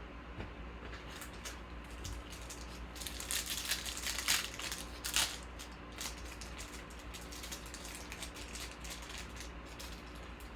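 Trading-card pack wrappers and cards being handled: irregular rustling and crinkling, busiest and loudest about three to five seconds in.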